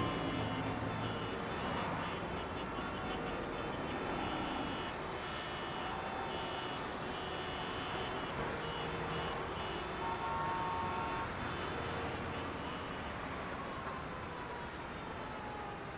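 Traffic held in a jammed street: the engines of cars, auto-rickshaws and motorbikes running, with a rapid high-pitched chirping pulsing steadily over it. A long slowly falling tone comes in over the last few seconds.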